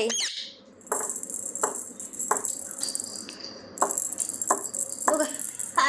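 A rhythmic jingling rattle, struck about every two-thirds of a second over a steady bright jingle like small bells. A short warbling call trails off right at the start.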